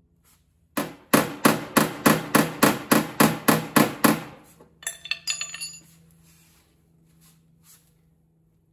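Body hammer striking the steel rear fender lip of a Mazda RX-7 FC, knocking the previously rolled lip back out: a rapid series of about a dozen sharp metal blows, roughly three a second. A few lighter metallic knocks with a short ring follow.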